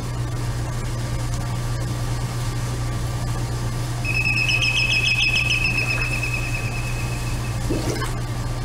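Whirlpool bathtub pump running with a steady low hum as the jets churn the bath water. About halfway through, a high whistle-like tone joins for a few seconds, wavering at first, then holding steady.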